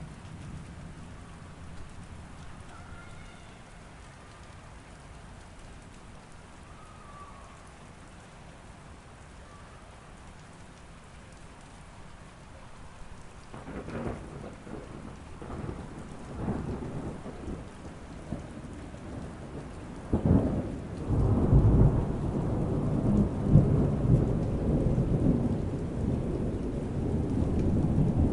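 Steady rain falling, then thunder: rumbling begins about halfway through, builds in waves, and breaks into a sudden loud clap about two-thirds of the way in that rolls on in heavy rumbling.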